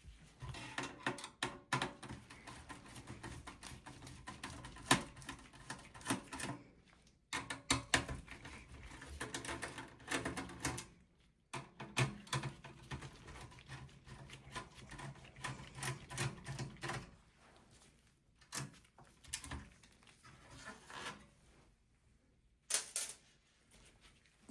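Screwdriver backing out small screws from the desktop PC's motherboard: a run of small clicks and scraping metal-on-metal clatter, in several bursts with short pauses between.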